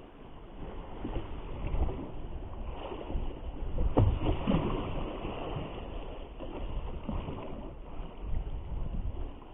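Strong wind rumbling on the microphone over waves washing, with a single sharp knock about four seconds in.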